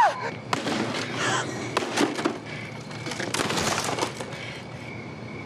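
An acoustic guitar smashed repeatedly against pavement. Its wooden body cracks and splinters with several sharp crashes over the first four seconds.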